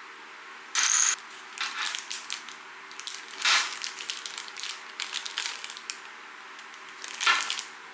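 Typing on an Mstone Groove T87A mechanical keyboard with silent milky linear switches (45 g): an irregular run of soft, muffled keystrokes, with a few heavier strokes about a second in, in the middle and near the end.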